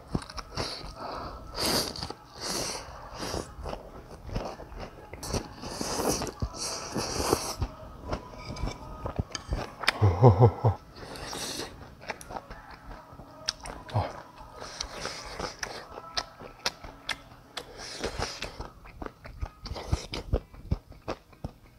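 Close-miked slurping of rice noodles from a beef noodle soup, with wet chewing throughout. About halfway through there is a brief low hum from the eater's voice.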